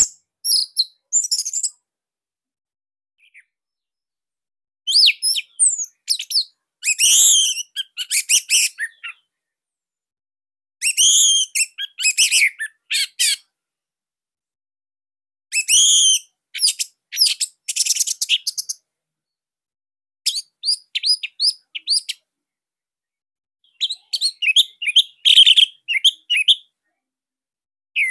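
Orange-headed thrush (anis merah) singing in bursts of rapid, high-pitched chirping phrases. About six bursts come with short pauses between them.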